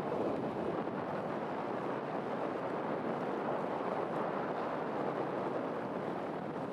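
Steady rushing of wind and water, with no distinct engine note or other event.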